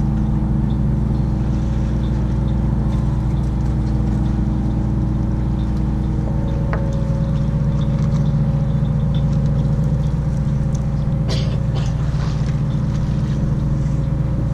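Fishing boat's engine running steadily, a low, even drone. A brief sharp click sounds about 11 seconds in.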